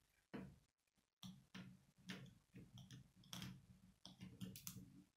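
Plastic K'nex pieces clicking and knocking as they are handled and fitted onto the car: a quick run of faint clicks, two or three a second.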